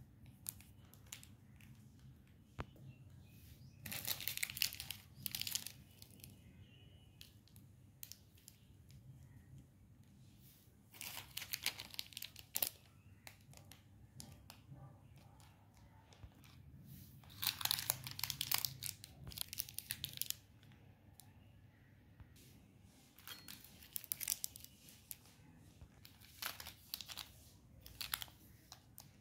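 Crinkly plastic snack wrappers rustling and crackling as they are picked up and handled, in about five separate bursts over a faint steady low hum.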